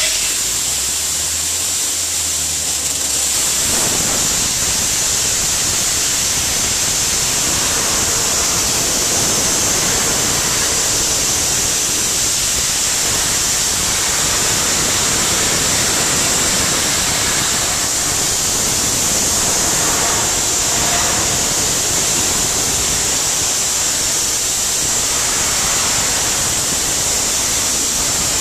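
Soda blaster nozzle spraying baking soda on compressed air: a steady, loud hiss, strongest in a high, sharp band.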